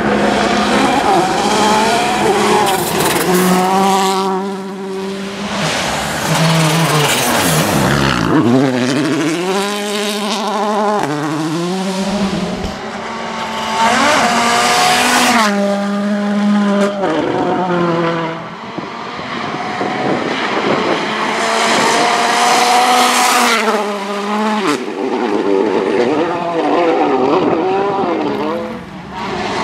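Volkswagen Polo R WRC rally cars' turbocharged four-cylinder engines at full attack on a special stage, pass after pass. The engine note climbs and drops over and over as the cars shift through the gears, with short lulls between passes.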